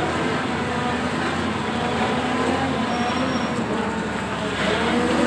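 Volvo wheeled excavator's diesel engine running steadily close by, with no hammering from its breaker.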